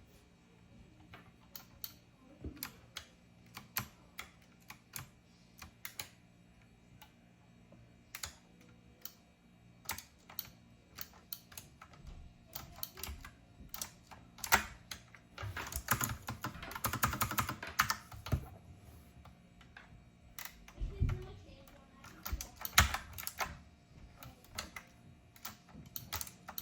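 Keys of a typewriter-style keyboard with round keycaps clicking as they are pressed: scattered single keystrokes, then a fast run of typing about sixteen seconds in, and a couple of louder knocks a few seconds after.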